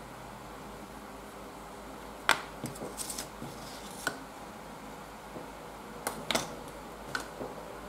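Several sharp light clicks and taps in two clusters, the loudest about two seconds in and another group around six seconds: small sculpting tools being set down and picked up on a plastic cutting mat, over a steady low hiss.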